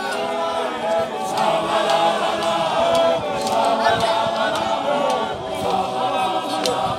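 A large group of men singing a chant together, unaccompanied and in several-part harmony.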